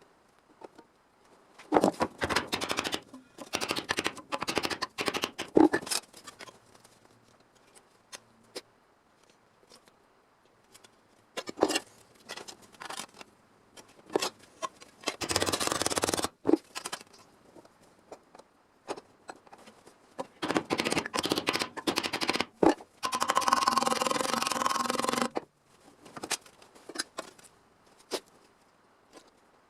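Sheet steel being worked with hand tools for a car body panel: irregular clusters of clicking, snipping and scraping of metal. There are two longer stretches of rasping noise, one about halfway through and one near the end.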